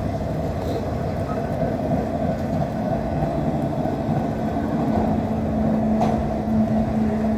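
Steady rumble of a CSX freight train running away into the distance after its last car has passed, with a steady low hum coming in about halfway through.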